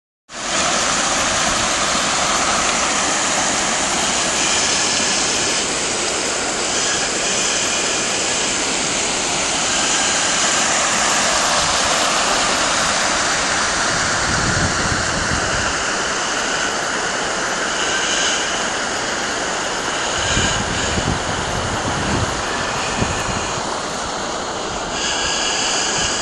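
Floodwater rushing and churning over a submerged path, a loud, steady rush of water. Gusts of wind buffet the microphone a few times in the second half.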